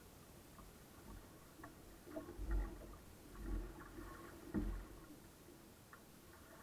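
Water washing and slapping against a small sailboat's hull as it sails, with three low thuds around the middle and light scattered clicks and creaks.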